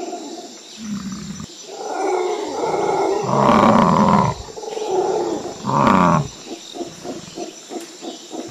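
Stock animal roars and bellows dubbed onto animated hybrid bull-like beasts: several separate calls, the loudest about three and a half and six seconds in, then a quick run of short repeated calls that fades near the end.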